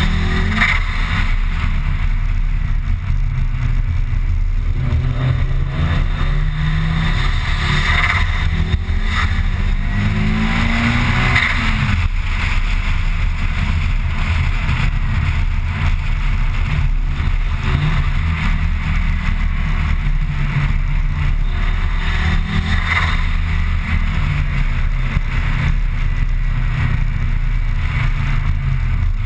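Mitsubishi Lancer Evolution IX's turbocharged 2.0-litre four-cylinder engine running under way, heard from inside the car over steady road rumble. The engine note climbs for a few seconds near the middle as the car accelerates, then settles back to a steady cruise.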